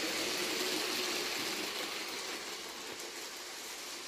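Brick-built model train, a modified Bluebrixx Koploper, running along plastic track on a tiled floor: a steady rushing rattle of wheels and motor that slowly fades.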